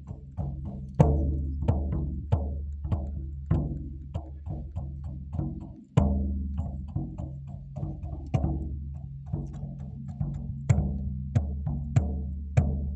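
Frame drum (shaman-style бубен) beaten steadily with a beater, about two strokes a second, each stroke leaving a low booming ring; one stroke about six seconds in is the loudest.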